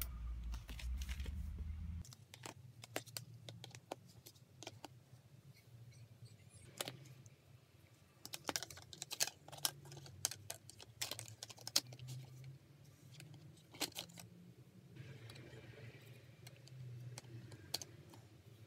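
Plastic toy construction pieces clicking and knocking together as they are handled and fitted onto an axle. The clicks are light and irregular, a few at a time.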